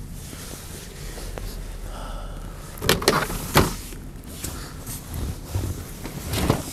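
A few sharp clunks from a car's doors and interior fittings being handled: two close together about three seconds in, and another near the end.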